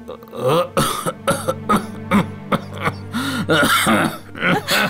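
A person coughing and gasping in short, ragged bursts over soft background music.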